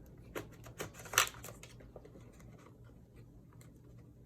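Clicks and handling noise from a Polaroid Spectra instant camera and its jammed film pack being worked by hand: a few sharp clicks in the first second and a half, the loudest just after a second in, then faint handling noise.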